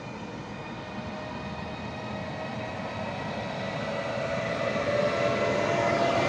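PKP Intercity EU44 Husarz (Siemens EuroSprinter) electric locomotive approaching with its passenger train: a steady electric whine with several tones over running noise, growing steadily louder as it draws near.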